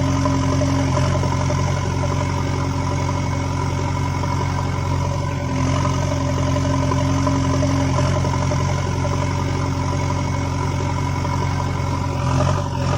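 Tractor engine running steadily at an even, unchanging speed, cutting off suddenly at the very end.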